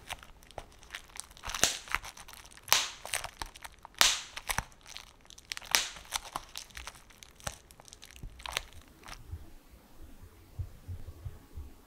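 Plastic bubble wrap crinkling and crackling in sharp, irregular bursts as it is handled and squeezed, dying down to a few soft low knocks about nine seconds in.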